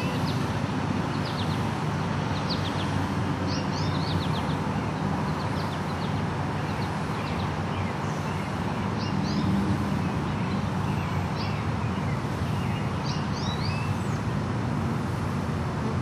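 Small birds chirping in short groups of quick, high, falling notes every second or two, over a steady low background rumble.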